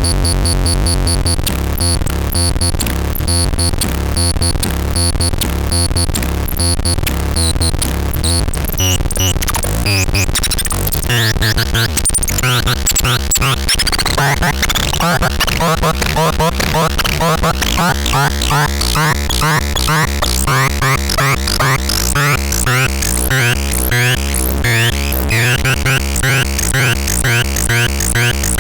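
Electronic synthesizer music: dense, glitchy tones over a pulsing low bass, with quick rising and falling sweeps growing busier after about ten seconds.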